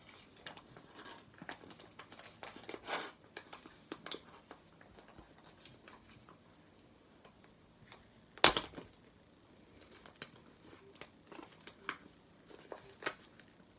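Parcel packaging being handled and worked open by hand: scattered crinkles, scrapes and small clicks, with one sharp knock about eight seconds in.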